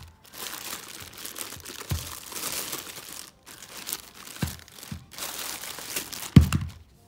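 Packaging rustling as a cordless drill is unwrapped and handled, in spells with short pauses, with a few dull thumps, the loudest near the end.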